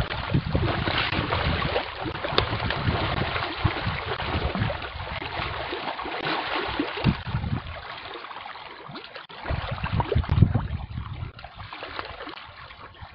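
Dense shoal of fish churning and splashing at the water's surface in a feeding frenzy on thrown snack food: a continuous patter of splashing water that eases a little past the middle.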